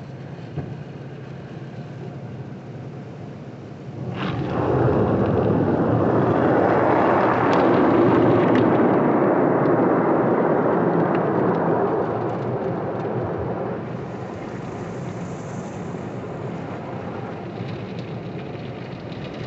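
Automatic car wash heard from inside the car: water spray and cloth brushes beating on the windshield and body make a steady rushing. It swells loud about four seconds in and eases back down after about ten seconds.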